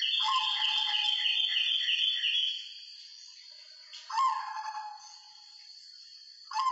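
White zebra dove (perkutut) cooing: a quick run of repeated notes for about two and a half seconds, then two shorter calls, one about four seconds in and one near the end. A thin steady high tone sounds underneath.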